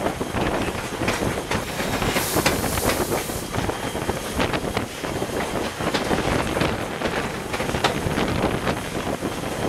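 Steam-hauled train rolling along, with the steady clatter of wheels over rail joints and a brief hiss about two seconds in. The locomotive is a 1910-built 2-6-0.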